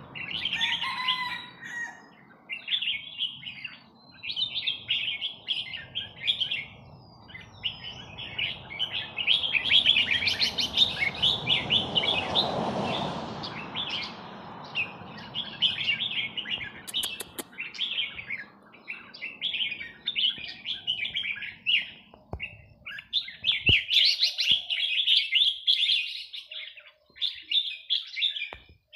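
Red-whiskered bulbul singing from a cage: short, bright warbled phrases repeated one after another with brief pauses. A broad rushing noise swells and fades under the song about twelve seconds in.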